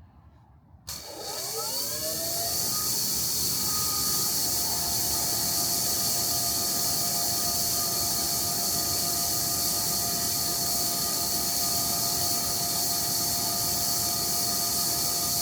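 EGO battery-powered pressure washer starting about a second in, its motor and pump whine rising in pitch and settling to a steady tone on the high setting, over the loud steady hiss of the water jet from the 25-degree nozzle.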